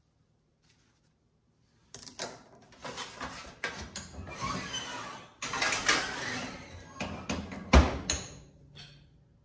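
Kitchen clatter starting about two seconds in: the oven door opening, a metal baking sheet of pancakes scraping and knocking onto the oven rack, and the oven door shut with a heavy thud near the end.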